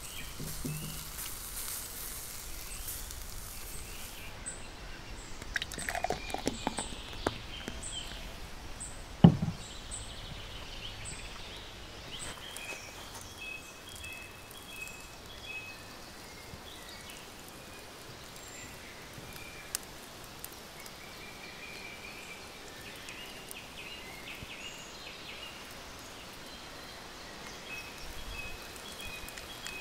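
Outdoor ambience around a charcoal grill: a faint hiss of glaze over the coals at first, a few small clicks, then one sharp clunk about nine seconds in, the loudest sound. Small birds chirp in the background through the second half.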